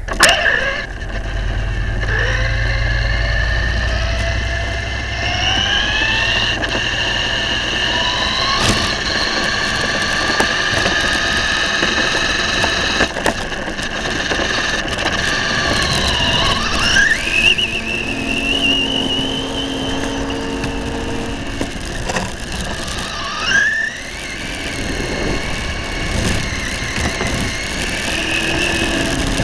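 Remote-control model airplane's motor and propeller whining at a high pitch, the whine rising and falling as the throttle changes, with a dip and sharp rise a little past halfway and another rise about four-fifths of the way through.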